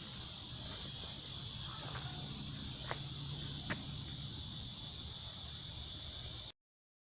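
Steady, dense chorus of night insects, crickets or similar, with a faint low hum beneath. It cuts off suddenly about six and a half seconds in.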